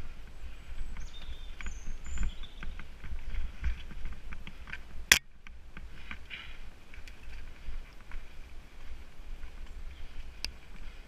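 Nukeproof Mega TR mountain bike riding fast down a dirt singletrack: wind rumble on the head-mounted GoPro's microphone, tyres on dirt and a busy rattle of clicks from the bike. One sharp knock about five seconds in.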